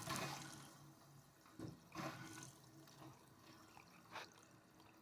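Bathroom faucet spitting and dripping faintly in a few short, irregular spurts. It is the sound of air in the water pipes, after the supply was shut off for the valve repair and turned back on.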